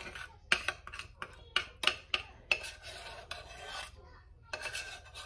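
A spoon scraping cooked grits out of a stainless saucepan: about a dozen short scrapes and taps of the spoon against the pan, with a brief pause a little after the middle.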